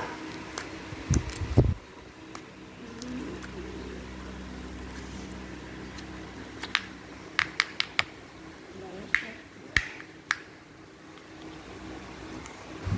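Pink slime squeezed and kneaded in the hand, giving sharp clicking pops now and then, with a quick run of several about seven seconds in and a few more around ten seconds. A couple of dull thumps come near the start.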